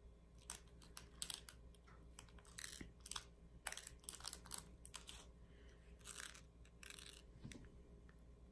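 Faint, scattered light clicks and short rattles of plastic diamond painting drills in a plastic drill tray as it is handled and shifted.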